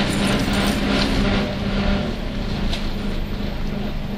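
Nissan Diesel UA (U-UA440NAN) city bus running, heard from inside the cabin, with a steady droning tone under the engine and road noise. This bus makes an abnormal noise, which the uploader links to the vehicle nearing its inspection due date. The sound eases off slightly about halfway through.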